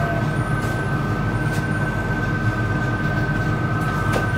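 Airport Skytrain people-mover, heard from inside the car, running slowly into its station: a steady two-note electric whine over a low rumble, with a few faint ticks.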